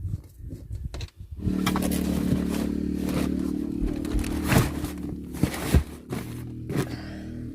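Background music with long held chords comes in about a second and a half in, over knocks and scrapes of hand work on a van floor.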